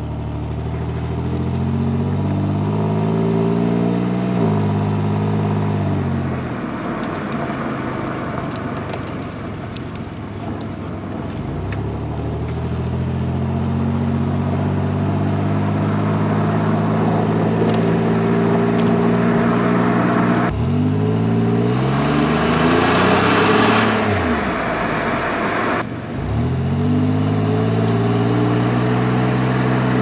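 Pontiac Grand Am's 3.4-litre V6 heard through its stock exhaust (stock muffler, resonator and high-mileage catalytic converter) from the rear bumper while driving. The engine note climbs in pitch as the car accelerates, drops back sharply a few times and climbs again, with road and tyre noise underneath and a couple of seconds of louder rushing noise about three-quarters of the way through.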